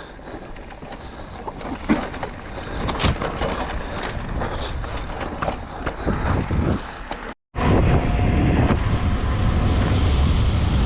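Trek Rail e-mountain bike rolling fast down a dirt trail: tyre noise with scattered knocks and rattles from the bike over rough ground. Just after seven seconds the sound cuts out briefly, then a louder, deep wind rumble on the microphone takes over.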